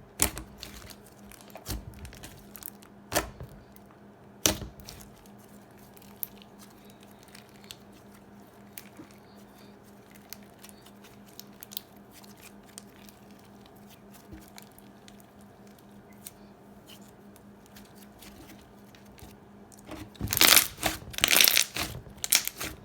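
Thick foam slime with big foam beads being stretched and squished by hand: sticky crackling and small clicks, with a few sharp snaps in the first seconds and a dense run of loud bubble pops near the end.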